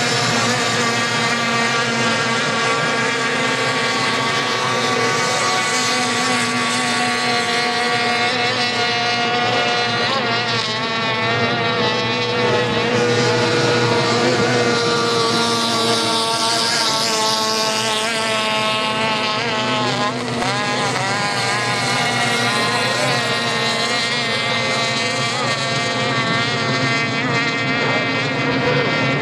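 Several two-stroke racing outboard motors on small race boats running flat out together. Their pitches rise and fall as the boats pass and turn, with a stretch of shifting pitch in the middle.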